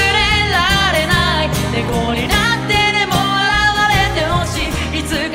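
Live band performance of a J-pop song: a male and a female vocalist singing into microphones over acoustic guitar, keyboards and drums.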